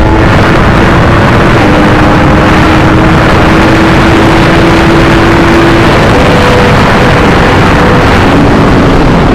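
Yamaha R1's crossplane inline-four engine running at steady high revs under a heavy rushing noise. The pitch holds, then drops about six seconds in and again near the end as the throttle eases.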